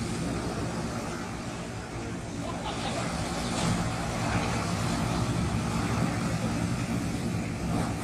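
Sea surf: waves breaking and washing up a sandy beach in a steady rushing noise that swells about halfway through and again at the end as a wave crashes near the shore.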